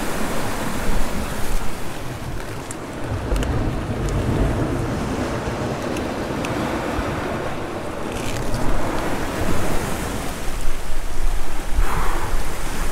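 Sea swell surging and washing over the rocks as a steady rushing noise, with wind buffeting the microphone in low gusts.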